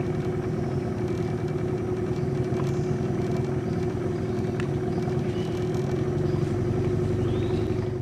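Small boat engine running steadily at a constant speed, a continuous motor drone.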